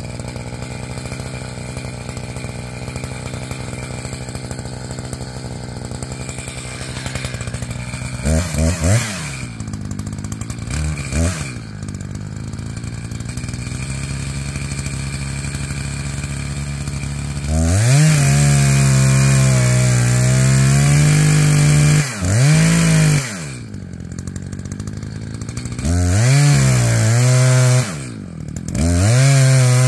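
Chainsaw idling steadily, revved briefly twice about a third of the way in, then run at full throttle from a little past halfway, its pitch wavering under load as it cuts into the dead ponderosa pine, dropping back to idle twice for a moment.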